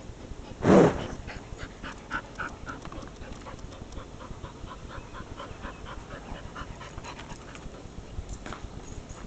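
A small dog panting in short, quick, irregular puffs. A single short, loud noise comes about a second in.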